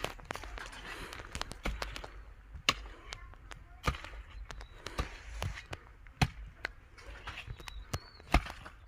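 Hoe chopping into garden soil while weeding: irregular sharp strikes, roughly one every half second to a second, with faint scraping between them.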